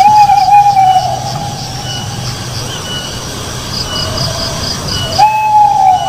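An owl's long whistled call, rising briefly and then sliding slowly down, given twice: at the start and again about five seconds in. Under it run a rapid series of high pips and a steady low hum.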